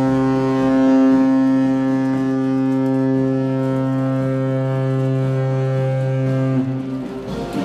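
The Antarctic icebreaker Shirase's ship horn sounding one long, steady, deep blast as a departure signal, cutting off about seven seconds in.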